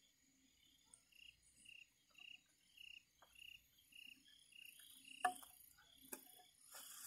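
A cricket chirping steadily, faint, about three short high chirps a second. A sharp knock a little past five seconds in is the loudest sound, with a lighter one about a second later.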